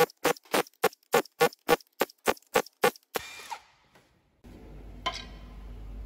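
About a dozen sharp, evenly spaced clicks, roughly three or four a second, stopping about three seconds in; a steady low hum starts near the end.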